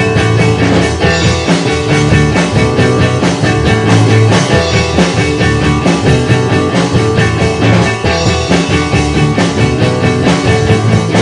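Rock band playing: a drum kit, bass guitar and electric guitar in a dense, loud psychedelic-rock passage.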